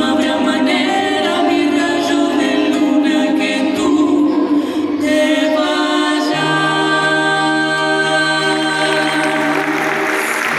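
Voices of a music duo singing a song, ending on a long held final note. Applause starts near the end.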